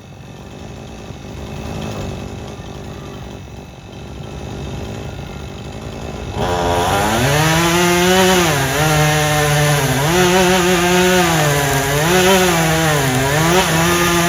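Two-stroke chainsaw cutting into an oak, faint at first, then much louder from about six and a half seconds in. Its engine pitch dips and recovers again and again as the chain loads up in the wood.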